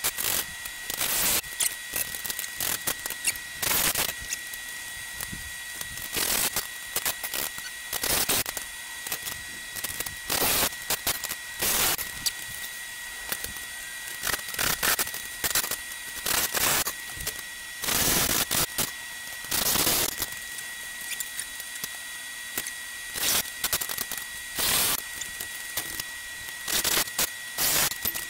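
Cordless drill running in some twenty short bursts of under a second, driving fasteners into a steel frame, with a faint steady high whine underneath.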